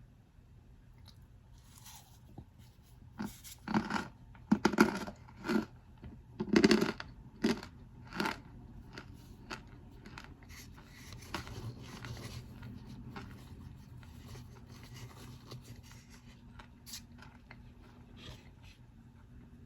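Packed starch powder mixed with baking powder being crunched. There is a run of about seven loud, sharp crunches in the first half, then softer, continuous crumbling and crackling that fades toward the end.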